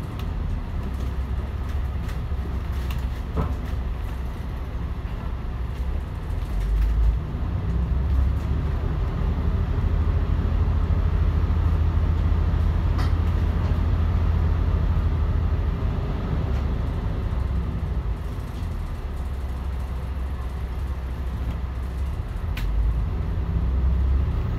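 Volvo D10A-285 inline-six diesel of a Volvo Super Olympian double-decker bus running under way, a steady low drone heard from inside the bus. It grows louder about eight seconds in and eases off again past halfway, with a few light rattles.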